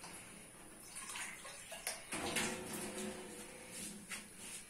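Tap water running into a two-handled steel pan, with a few light knocks of the metal pan as it is handled.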